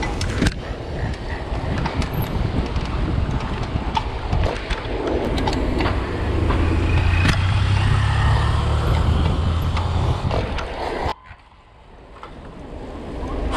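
Street traffic and wind rumble heard from a bicycle riding through town, with a motor vehicle's engine hum swelling in the middle. The sound drops away suddenly near the end and then builds back.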